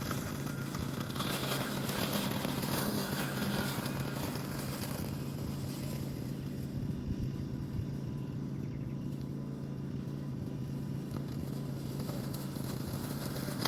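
Lawn mower running with a steady low hum while it cuts grass.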